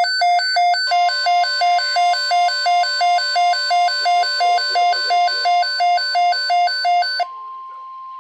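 A NOAA weather radio receiver's alert alarm beeping rapidly, about three electronic beeps a second, signalling an incoming weather alert. About seven seconds in the beeping cuts off, leaving a steady, quieter warning tone of about 1 kHz from the broadcast.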